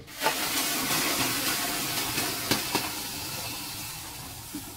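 Liquid poured from a plastic jug in a steady stream into a large metal cooking pot, splashing and rushing. It starts suddenly and grows slowly quieter as it goes on.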